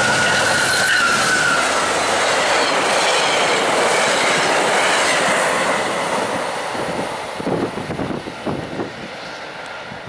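A VIA Rail passenger train, a P42 diesel locomotive hauling four LRC cars, passes at speed with a loud rush and clatter of wheels on rails. A high steady tone fades out in the first couple of seconds. After about six seconds the noise drops away as the last coach recedes, and uneven gusts of wind buffet the microphone.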